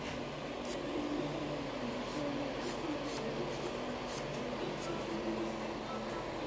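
Nail file rasping across a fingernail in short, irregular strokes over the steady whir of a nail dust collector fan.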